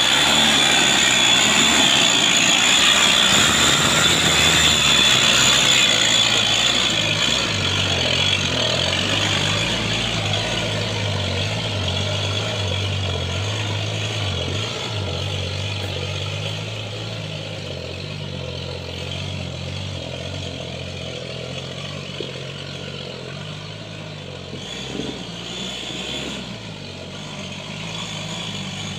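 Toyota Land Cruiser FJ40 hardtop's engine running as the truck, loaded with oil palm fruit bunches, drives away up a rutted mud track, growing steadily fainter. A high steady whine rides over the engine for the first several seconds.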